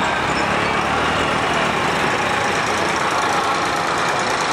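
Vehicle engines idling with a steady rumble, amid a dense, even wash of outdoor noise.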